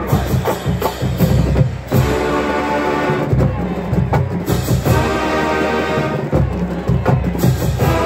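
College pep band playing: the drumline's snares, bass drums and cymbals drive a fast beat, and the brass section, with sousaphones, trumpets and mellophones, comes in with held chords about three seconds in and again twice later.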